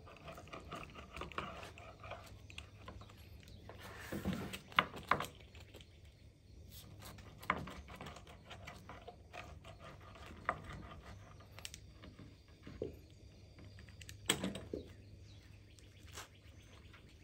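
Pizza wheel cutting through a crisp, charred pizza crust on a wooden board: scattered short crunches and knocks, one every second or two.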